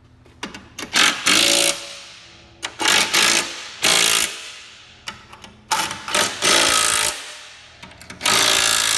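Power impact wrench driving nuts onto the carriage bolts that hold the leaf plow to the mower hitch. It runs in about six short bursts of rapid hammering rattle, each a second or less.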